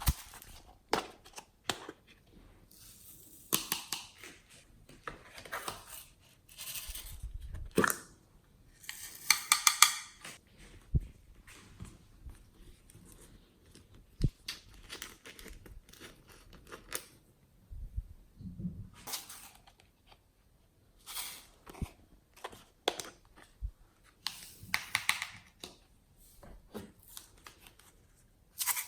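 Glossy slime being kneaded, squeezed and stretched by hand, giving irregular sticky clicks, pops and short crackling squelches, the loudest bursts near the middle.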